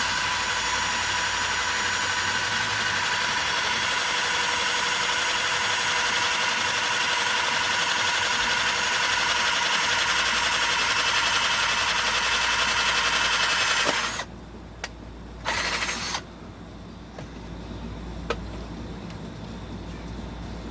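Power drill with a large bit running steadily while boring holes through a motor mount, for about fourteen seconds. It stops, runs again briefly, then stops.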